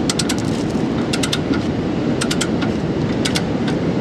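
Ratchet wrench clicking in short bursts about once a second as a caliper bracket bolt is turned in clockwise, over a steady low rushing background.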